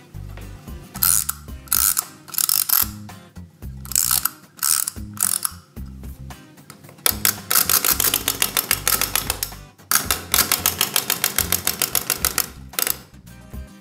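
Clockwork wind-up toy: its key is turned in short ratcheting strokes, then the spring motor runs with a fast, even ticking of about nine a second, stopping briefly about ten seconds in and again near the end.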